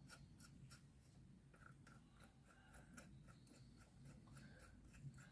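Near silence: room tone with faint scattered light ticks and rubs.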